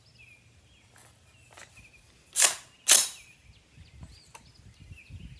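Two sharp, loud metallic clacks about half a second apart: a magazine being seated in a .50 Beowulf AR rifle and the bolt run home to chamber a round.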